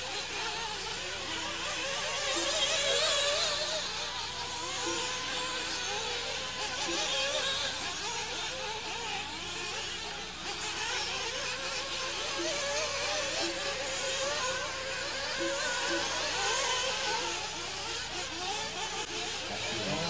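Several nitro RC buggies' small two-stroke glow engines buzzing at high pitch, their revs rising and falling continually as the cars race around the track.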